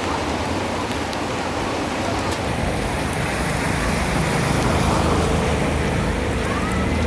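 Heavy rain pouring in a steady hiss, with a low rumble growing louder from about four seconds in.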